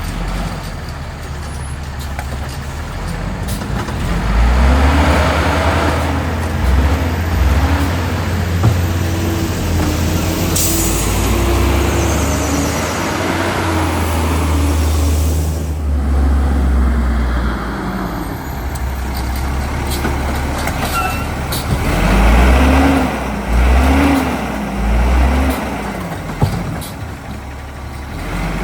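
Autocar WX rapid rail side-loader garbage truck's diesel engine pulling hard, its pitch climbing and dropping repeatedly as it accelerates and shifts, in two spells of hard acceleration. A short burst of air hiss comes about ten seconds in.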